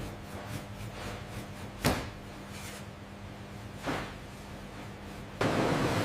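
Two sharp clunks about two seconds apart, the first the louder, over a low steady hum; near the end a loud rushing hiss starts suddenly.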